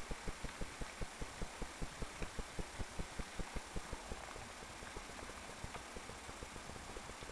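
Steady rain falling, with a rapid regular low thumping of about five beats a second that fades about halfway through.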